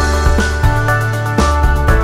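Background electronic music with a steady beat and deep bass notes.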